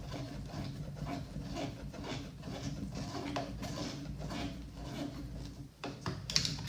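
Hand driver turning a screw into a plastic RC truck chassis: a run of rubbing, scraping strokes about three a second as the screw is twisted in, with a few sharp clicks near the end.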